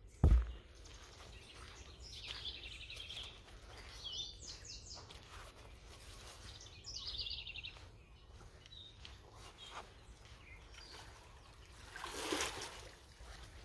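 Songbirds singing in short, rapid trilled phrases, three of them clearly heard. A single low thump comes just after the start and is the loudest sound, and a brief rustle comes near the end.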